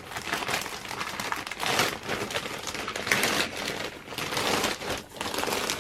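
Packaging being handled and opened by hand, with continuous crinkling and rustling and many small crackles.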